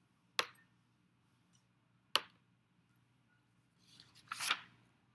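Glass beakers being handled and set down: two sharp knocks about half a second and two seconds in, then a longer scraping rustle about four seconds in.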